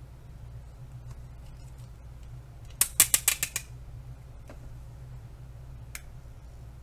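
Westcott Project Mate hot glue pen's plunger mechanism ratcheting: a quick run of about six sharp clicks about halfway through, and a single click near the end, over a steady low hum.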